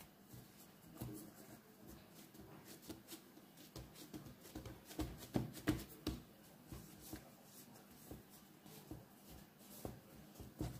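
Hands patting and smoothing a sheet of pie dough: soft, irregular taps and rubbing, with a cluster of louder taps about five seconds in.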